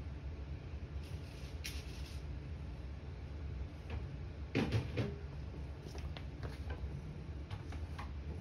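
Scattered small clicks and taps over a steady low hum, with a brief cluster of louder knocks a little past halfway.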